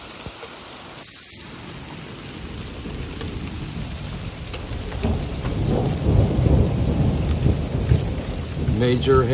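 Hail pelting down in a heavy storm, with a deep rumble of thunder that builds from about three seconds in and is loud through the second half.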